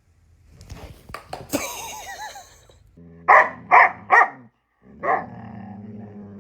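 Belgian Malinois barking: after a second or two of scuffling and a brief whine, three loud barks in quick succession, then a fourth, with a low growl rumbling between them.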